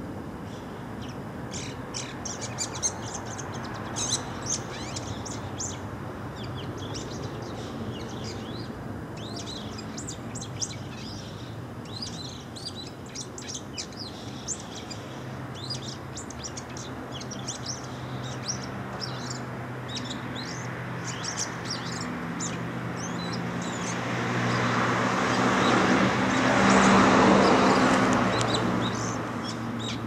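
Bull-headed shrike calling: quick runs of short, high notes, coming in bursts through most of the stretch. Near the end a broad rushing noise swells up and fades away, louder than the calls.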